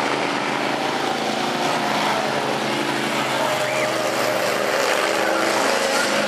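Several school bus engines running hard together in a racing pack, a steady mix of engine drones at different pitches that drift slightly up and down.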